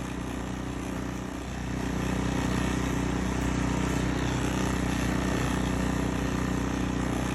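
Gas snow blower engine running steadily, clearing snow, a little louder from about a second and a half in.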